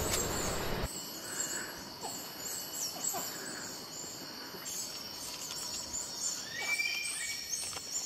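Birds chirping in natural outdoor ambience, with many quick high-pitched notes repeating throughout and a brief clear whistled note about seven seconds in.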